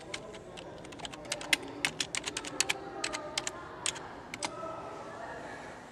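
Typing on a computer keyboard: a quick, irregular run of keystrokes that thins out and stops about four seconds in.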